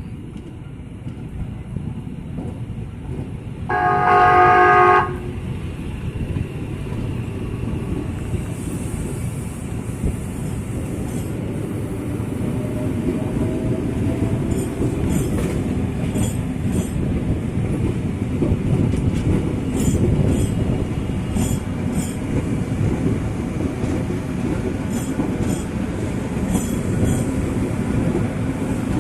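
Tokyu 8500-series electric commuter train sounding its horn once, a steady blast of about a second. It then runs past with a rumble that grows louder and repeated clicks of the wheels over rail joints.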